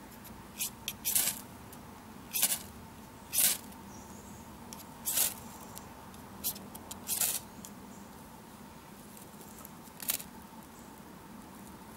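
A ferrocerium fire steel scraped with its striker: about nine short, sharp rasping strikes at irregular intervals, with a long gap before the last one. These are the strikes throwing sparks onto hazel feather sticks, which are hard to light from a spark alone.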